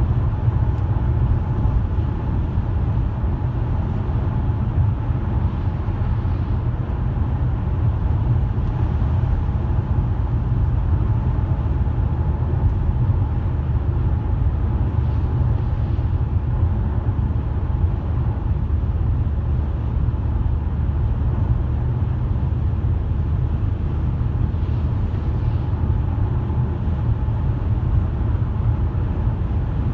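A car being driven: steady low rumble of the engine and tyres on the road, unchanging throughout.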